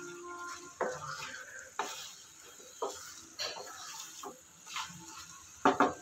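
Wooden spatula stirring chicken pieces through thick masala in a metal kadai, scraping and knocking against the pan about once a second, with the two loudest knocks close together near the end. A faint sizzle of the frying masala runs underneath.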